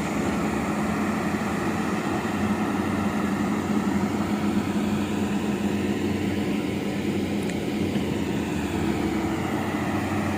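Diesel engine of an amphibious excavator running steadily, a constant low hum.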